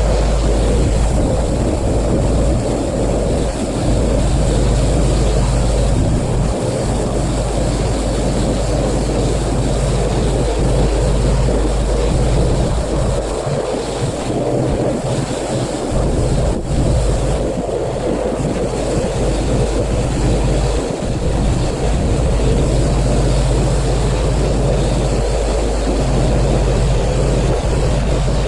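Pressure washer running: a steady motor drone under the continuous hiss of the water jet spraying.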